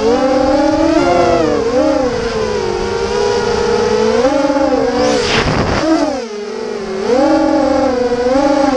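FPV quadcopter's electric motors and propellers whining, the pitch rising and falling with the throttle. There is a brief rush of noise about five seconds in, and the whine drops off for a moment around six seconds before picking back up.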